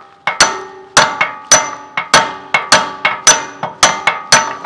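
A hammer strikes the steel steering knuckle and ball-joint parts of a Jeep Wrangler JL front axle in a rapid series of blows, about three a second, some louder than others. Each blow rings briefly with a metallic clang.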